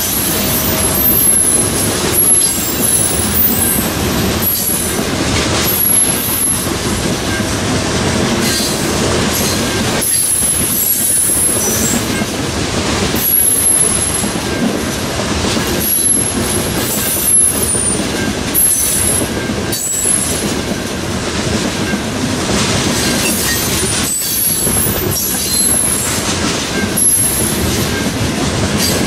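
Freight train rolling past close by: steel wheels running on the rails, with short high-pitched flange squeals coming and going.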